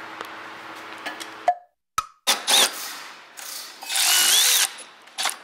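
Cordless electric ratchet running in several short bursts, tightening the bolts of a freshly fitted transfer case. The longest, loudest run comes near the end, its motor whine rising and falling.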